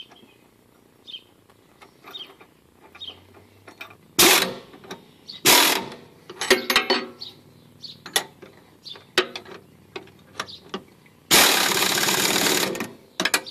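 Pneumatic impact wrench driving a bolt into a trailer axle mounting tab: short hammering bursts about four, five and a half and seven seconds in, then one longer burst of about a second and a half near the end, with small metal clicks between.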